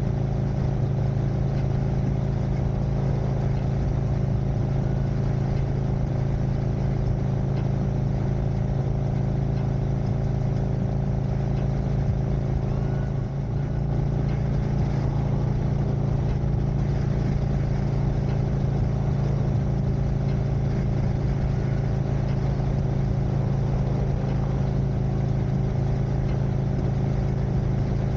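2021 Harley-Davidson Street Glide Special's Milwaukee-Eight 114 V-twin running steadily at highway cruising speed, held around 3000 rpm, dipping briefly about halfway through.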